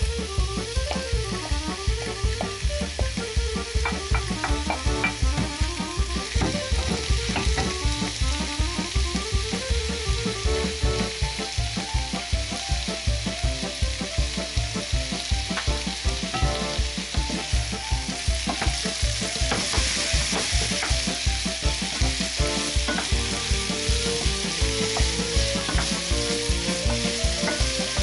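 Potato wedges and mushrooms sizzling in oil in a frying pan while being stirred with a wooden spatula, the sizzle growing louder in the later part. Background music with a steady beat runs underneath.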